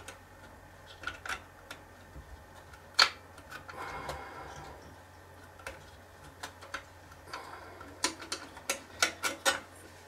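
Small plastic and metal clicks and taps of a SODIMM memory module being worked into its slot on the NAS main board. One sharper click comes about three seconds in, and a quick run of clicks comes near the end.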